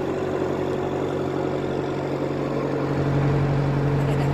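An engine running steadily with a constant low hum, a little louder near the end.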